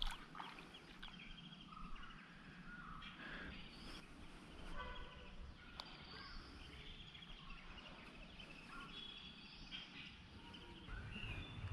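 Quiet outdoor ambience: several birds chirping and calling in short scattered notes over a low steady rumble.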